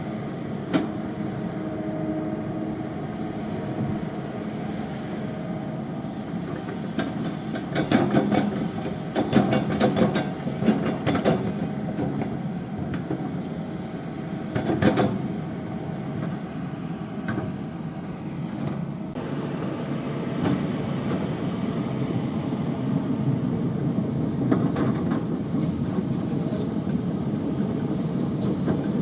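Kobelco hydraulic excavator's diesel engine running steadily, with bursts of clattering knocks about a third of the way in and again about halfway: soil and stones landing in the dump truck's bed or the bucket striking it during loading. The engine grows somewhat louder in the last third.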